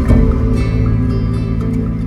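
Background music: calm, sustained new-age-style music with held tones.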